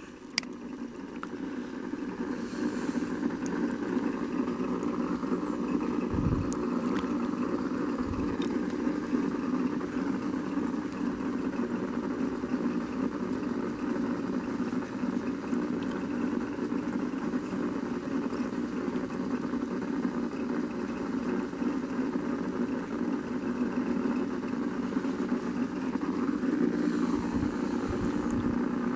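Steady low mechanical hum, like an engine or motor running at idle, with no change in pitch.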